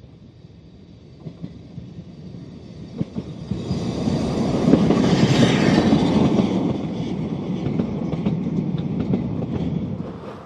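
Ffestiniog Railway narrow-gauge steam locomotive No. 5, Welsh Pony, a George England engine, drawing vintage carriages past close by. The sound builds from about three seconds in and is loudest around five seconds as the engine goes by. After that the carriages rattle past, their wheels clicking over the rail joints.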